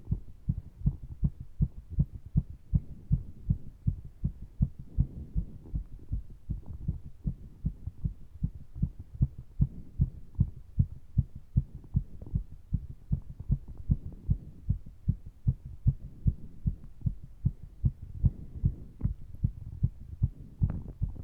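A human heart pounding after exercise, a quick, even run of low thumps. Breath noise swells in and out faintly behind the beats.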